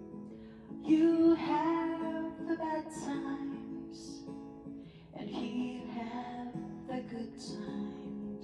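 A woman singing a slow song into a handheld karaoke microphone over an acoustic guitar backing track, in two phrases, with the guitar carrying on between them.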